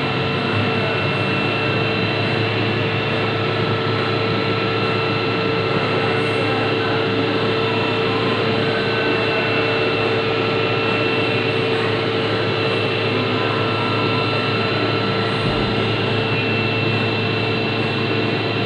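CNC milling machine cutting a contour: a steady machine whine made of several fixed tones over an even cutting hiss.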